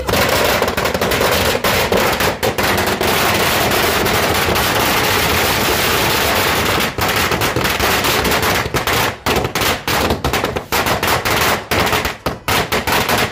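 A long string of firecrackers going off in a rapid, unbroken crackle of bangs. About halfway through it thins into separate pops with gaps between them, and it stops near the end.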